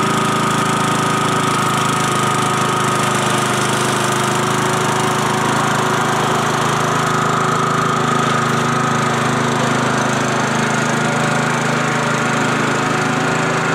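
Riding lawn tractor's small engine running steadily under load as it tows a heavy loaded trailer, with a steady high whine over the engine note.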